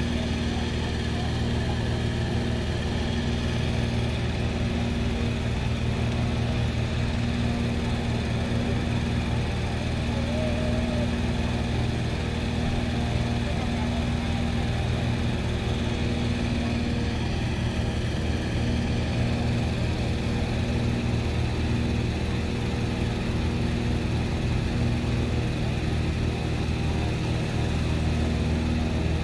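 Petrol-engine inflator fan running steadily at constant speed, blowing cold air into a hot-air balloon envelope during cold inflation.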